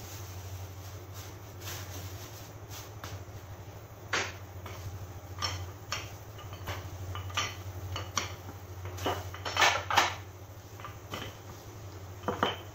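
Wooden rolling pin rolling out tart dough under a plastic sheet on a stone counter: irregular knocks and clatters with plastic rustling, mostly in the second half, over a steady low hum.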